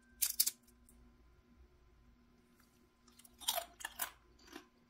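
Crispy deep-fried pollock skin crackling and crunching as gloved fingers break and pick up pieces: a few short dry crunches just after the start, then a cluster of them a little past three seconds in.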